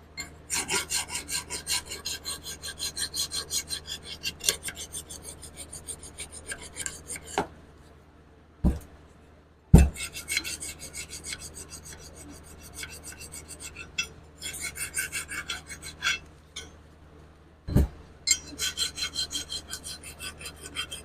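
Hand file rasping back and forth in quick strokes, about three or four a second, along the rear brake caliper bracket's pad-clip seats, scraping off rust buildup that would make the pads drag. The filing comes in several runs with short pauses, broken by a few sharp knocks of metal on metal.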